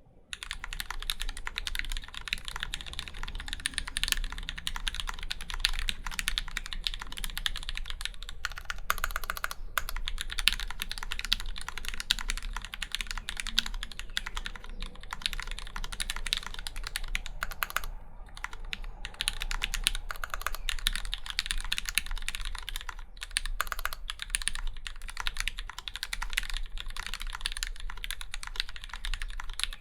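Continuous fast typing on a mechanical keyboard with an acrylic case and plate, lubed Gateron Black Ink linear switches and GMK keycaps: a dense run of keystroke clacks with a few short pauses.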